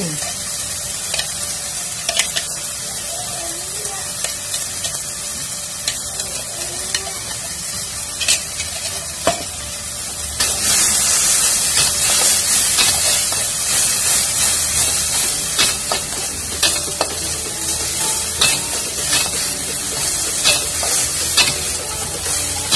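Ground spice paste with kencur (aromatic ginger) sizzling as it fries in oil in a metal wok, stirred and scraped with a metal spatula, which clicks against the pan again and again. The sizzling gets louder about ten seconds in.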